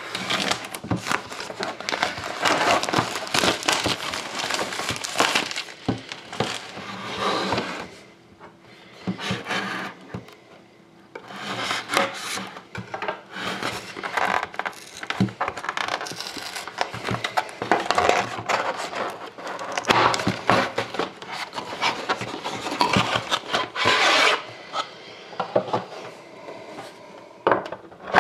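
Hands opening a trading-card box and pack: rubbing, scraping and rustling of cardboard and wrapper with small knocks, pausing briefly twice.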